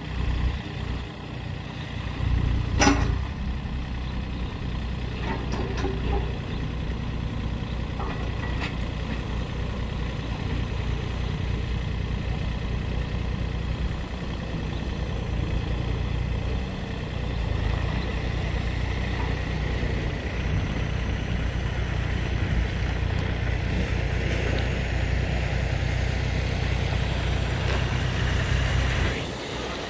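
Takeuchi TB230RA mini excavator's diesel engine running steadily under load as the boom, arm and bucket are worked and the machine tracks and turns, with a single sharp knock about three seconds in and a few lighter clicks after it.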